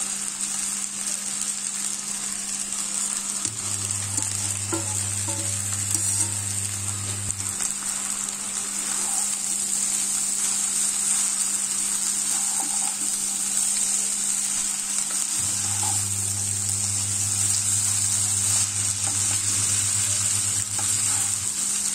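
Egg chicken chow mein sizzling steadily in a nonstick frying pan over high heat, while a wooden spatula stirs and tosses the noodles, chicken and egg in the pan.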